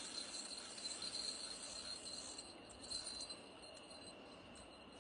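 Fishing reel's drag giving out line in a fast metallic clicking as a hooked carp pulls. The clicking eases off about halfway through.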